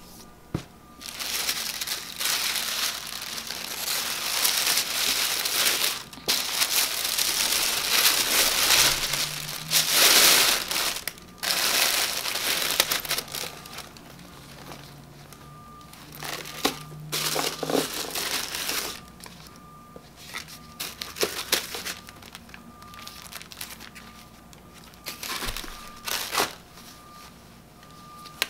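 Tissue paper crinkling and rustling as it is unfolded and pulled aside, in long dense bursts through the first half, loudest about ten seconds in. After that come shorter, scattered rustles and a few small clicks.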